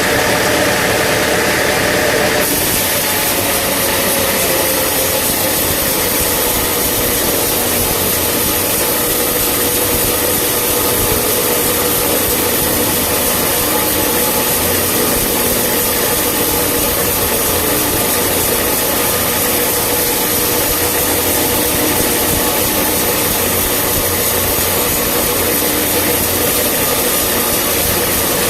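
Sawmill machinery running steadily with a constant hum. About two and a half seconds in, a strong high hiss joins it and lasts to the end.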